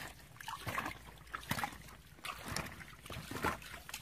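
Hands sloshing and splashing in shallow muddy water, in irregular wet strokes a few times a second.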